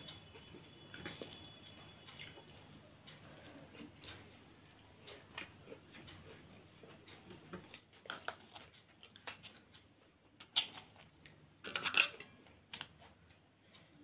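Quiet chewing and mouth sounds of someone eating pulao (spiced rice) by hand, with small clicks against a plate. Near the end, a few louder clatters as dishes and a serving spoon are handled.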